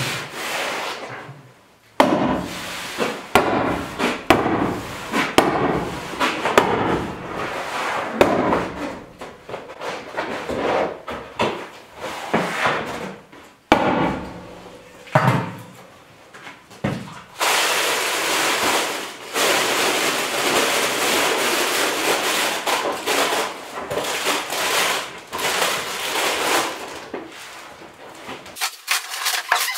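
Stiff tar paper crinkling and scraping against a board wall as it is handled and pressed flat, with scattered knocks. Near the end it gives way to a long stretch of steady rubbing.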